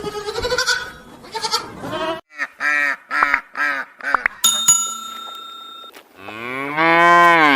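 A run of farm animal calls: several short pitched calls in quick succession, a ringing bell-like tone, then one long call that rises and falls near the end.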